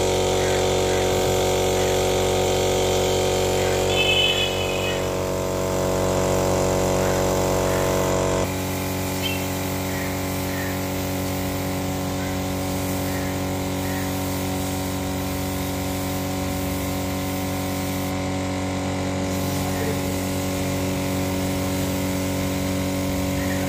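Steady hum of an air compressor running to feed a paint spray gun while finish is sprayed onto wooden chairs. The hum's lower part drops and changes about eight seconds in, and there is a brief high whistle at about four seconds.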